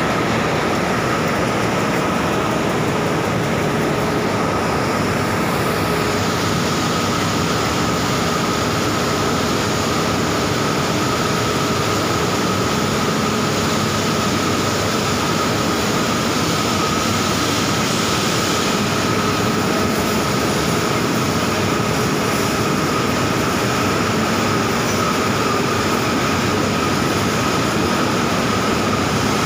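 Loud, steady din of continuous casting plant machinery in a steel mill: an even rushing noise with a steady whine riding on it, unbroken throughout.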